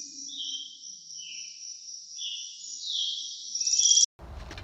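Birds chirping over a continuous high, rapid insect-like trill, with short separate call notes under the trill. It all cuts off abruptly near the end.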